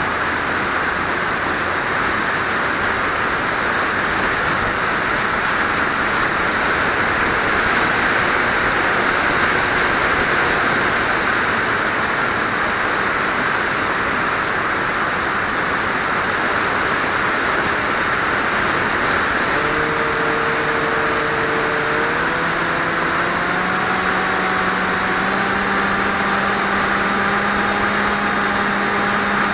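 The electric motor and propeller of a Swift 2 FPV flying wing, heard from its onboard camera in flight: a steady whine over a broad rush of airflow. About twenty seconds in, the motor's pitch steps up in stages.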